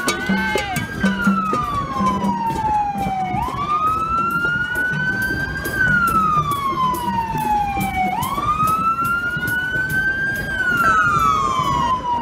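Emergency-vehicle siren wailing. Each cycle rises quickly and then falls slowly, repeating about every four and a half seconds. Sharp clicks run over it.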